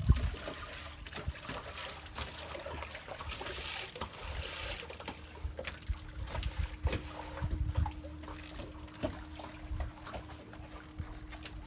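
Water trickling and splashing off a freshly hauled cast net, with scattered knocks and thumps of fish flopping on a small boat's deck.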